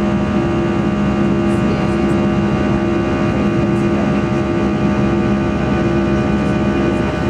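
Airbus A320's jet engines running at steady power: a loud, even rush of noise with a constant two-note hum beneath it and no change in pitch.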